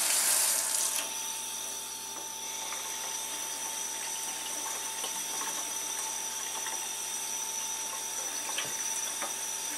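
Kitchen faucet running a stream of cool water over a boiled sweet potato in a plastic colander in a stainless steel sink. The stream is loudest in the first second, then settles to a steady, quieter flow.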